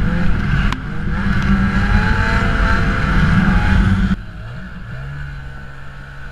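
Ski-Doo snowmobile engine running hard under throttle, with a short knock under a second in. About four seconds in it drops suddenly to a lower, quieter, steadier run.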